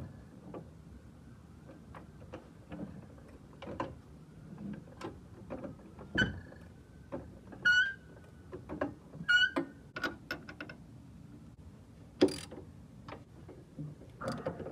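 Scattered metal clinks and knocks of tools and suspension parts being handled as a front steering knuckle and shock fork are fitted, with a few short ringing metallic clinks around the middle.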